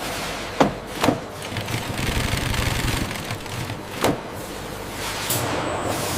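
Factory machinery running steadily, with three sharp knocks about half a second in, about a second in, and about four seconds in.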